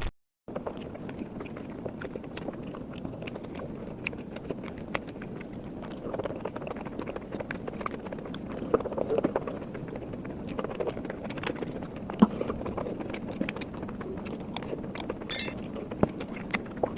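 Close-miked eating: chewing with many small wet mouth clicks, steady throughout after a brief silent gap at the start.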